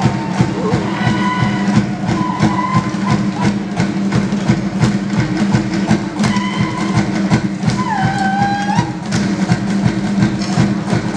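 Fast, driving Polynesian drumming with an even rapid beat, playing for the dance. A few held high tones sound over it, one dropping in pitch about eight seconds in.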